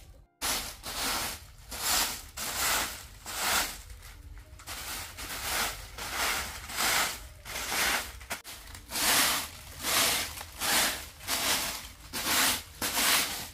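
Soft grass broom sweeping a packed-earth floor: even, rhythmic swishing strokes, about three every two seconds.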